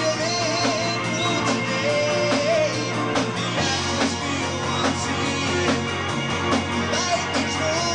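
Live progressive rock band playing: drum kit hits in a steady beat under a held bass guitar line, with a wavering melody line on top. The bass note drops lower about halfway through.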